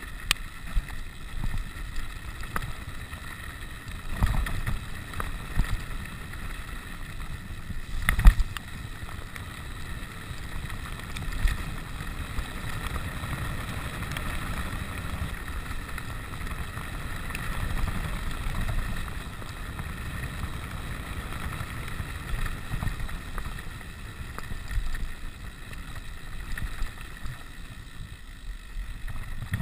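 Wind buffeting the microphone over the rumble and rattle of a rigid 29er mountain bike rolling fast down a gravel road. Several sharp knocks come as the bike hits bumps; the loudest is about eight seconds in.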